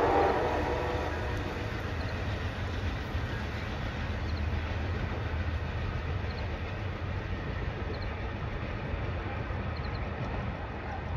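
Bilevel passenger train pulling away, its wheel and track noise loudest at first and dying down within about a second and a half to a steady low rumble as it recedes.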